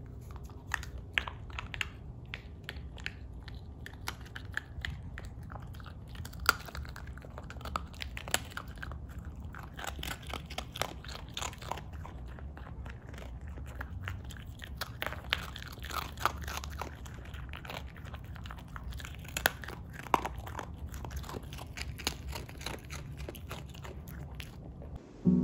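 A small dog crunching and chewing a hard dog biscuit, with many irregular sharp crunches as the biscuit breaks apart.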